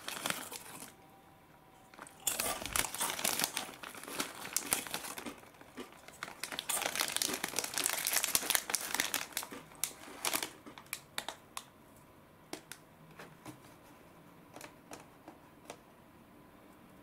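Foil snack pouch crinkling as fingers rummage inside it and pick out pieces. There are two long spells of loud rustling, then only scattered light crackles near the end.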